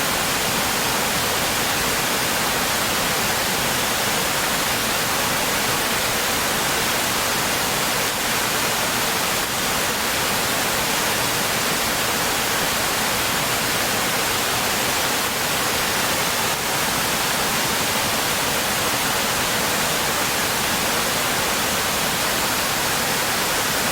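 Stream water rushing steadily: an even, hiss-like wash with no breaks or single splashes.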